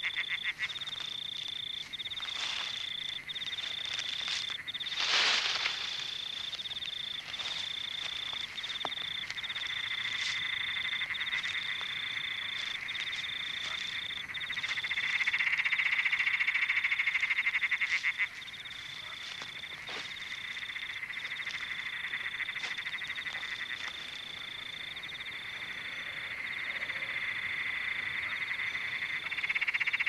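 Rainforest frogs calling in a steady night chorus, with a high, even trill broken about once a second. A brief louder sound comes about five seconds in, and the chorus swells for a few seconds midway and again near the end.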